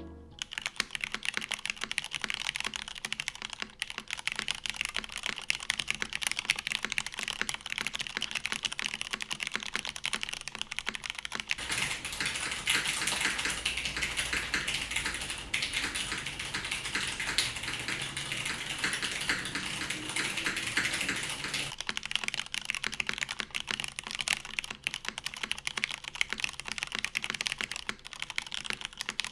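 Custom mechanical keyboard being typed on continuously. It has stock Cherry MX Red linear switches with only the springs oiled, an aluminium plate in a polycarbonate case, GMK keycaps and TX stabilisers. It gives a dense run of key clacks, faster and louder from about twelve to twenty-two seconds in.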